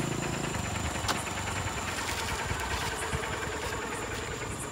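Motorcycle engine running while riding along a road, with heavy wind rush over the microphone; a steady low engine hum shows plainly in the first half second.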